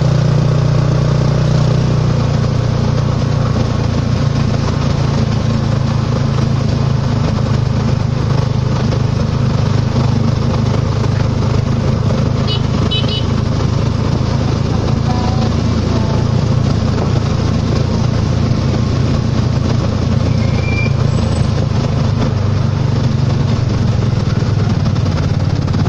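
Motorcycle engine of a Philippine tricycle (motorcycle with sidecar) running steadily as it travels along the road, heard from the sidecar as a continuous even drone.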